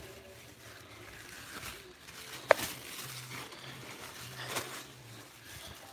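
Faint handling noise from a phone being carried, with rustling, one sharp click about two and a half seconds in, and a faint low hum in the middle.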